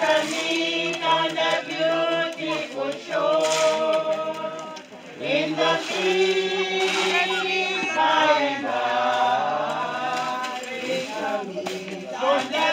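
A group of mourners singing a hymn together, unaccompanied, in long held notes.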